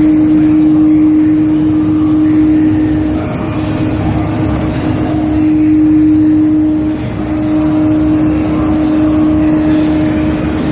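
Steady loud machine drone with one strong held tone over a low rumble, dipping briefly twice.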